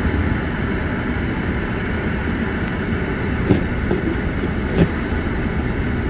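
Steady road and engine noise heard inside a car's cabin while driving on a snow-covered road, with two short thumps about three and a half and five seconds in.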